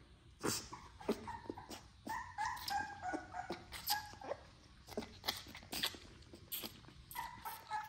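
Newborn XL American Bully puppy nursing from a baby bottle: wet sucking and smacking clicks several times a second, with high squeaky whimpers about two seconds in and again near the end.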